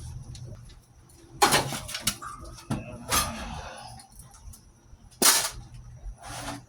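A few sharp knocks and clanks, the loudest about a second and a half in and again about five seconds in, with smaller ones in between.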